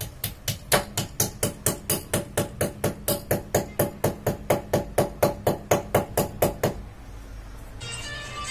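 A steady run of sharp knocks, evenly spaced at about four or five a second, that stops about seven seconds in. Background music begins near the end.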